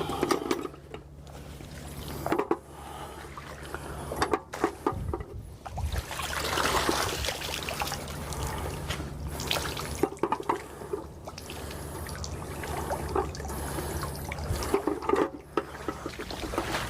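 Water trickling and splashing, mixed with irregular knocks and rustles, over a steady low hum.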